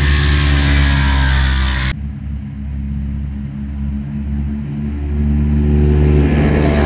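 Side-by-side UTV engines revving hard and accelerating in a grass drag race. The sound cuts off abruptly about two seconds in. A second pair of racing machines then runs, their engines climbing in pitch and growing louder near the end.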